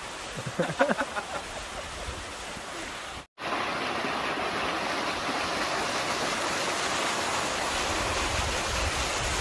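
Waterfall and stream water rushing steadily. The sound cuts out for an instant about three seconds in and comes back a little louder.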